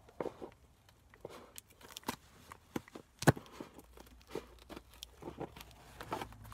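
Cardboard shipping box being cut open by hand: irregular scrapes, crinkles and small taps from the blade working at the packing tape and cardboard, with one sharp knock a little over three seconds in.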